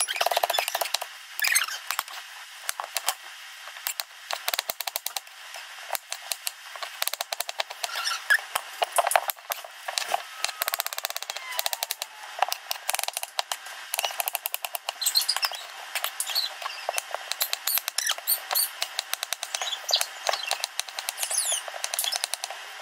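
Kitchen knife chopping vegetables on a wooden cutting board: quick runs of sharp taps with short pauses between them.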